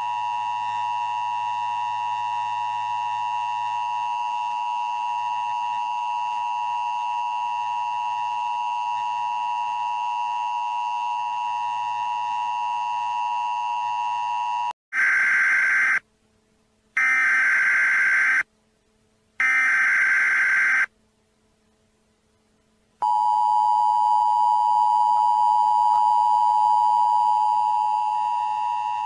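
Electronic alert tones of a science-fiction self-destruct sequence: a steady chord of tones, then about halfway through three long beeps with silent gaps between them, then a steady tone again.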